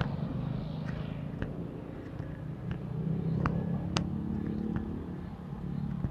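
A motor vehicle's engine running as it passes close by, swelling to its loudest about halfway through and then easing off, with a few sharp clicks over it.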